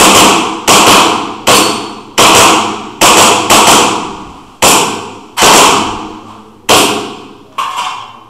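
Custom Hi-Capa 5.1 gas blowback airsoft pistol firing a string of about ten shots, irregularly spaced half a second to a second apart, each a sharp crack that trails off.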